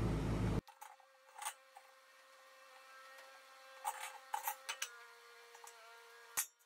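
Light metallic knocks and scrapes as a steel brake drum is lowered into a tractor wheel's freshly welded centre to check that it clears the welds, a cluster of them midway and a sharper knock near the end, over a faint steady hum.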